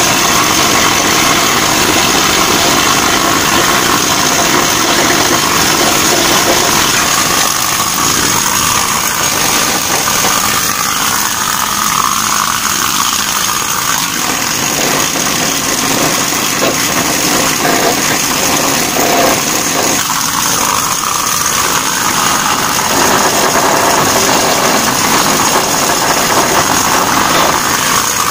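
Pneumatic rust-chipping tool hammering on a ship's steel gangway: a loud, continuous rattling buzz as rust is chipped off the steel.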